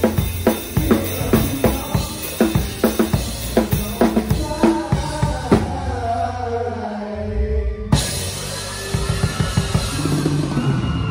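Drum kit played along with the song's recording in a steady beat of kick and snare strokes, which stop a little past halfway. The recorded music carries on with held notes, broken by one sharp full-range hit about eight seconds in.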